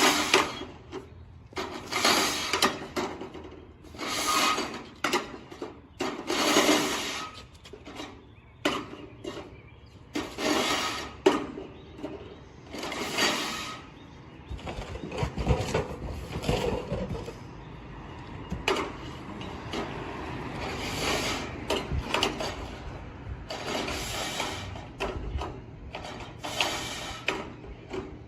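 A seamless gutter machine and the newly formed gutter make repeated short mechanical clattering and rubbing noises every couple of seconds. From about halfway through, a steadier low rumble joins them.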